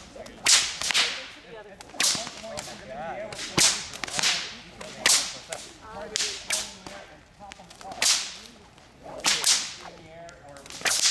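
Long whips being cracked over and over, about one sharp crack a second, some coming in quick pairs as two whips are swung at once.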